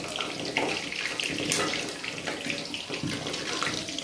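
Laung lata pastries deep-frying in oil in a steel kadhai over medium heat, the oil sizzling steadily with many small crackles.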